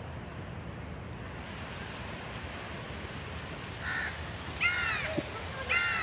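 Steady low outdoor rumble. From about four seconds in, young novice monks give three short, high-pitched shouts, each rising and then falling in pitch.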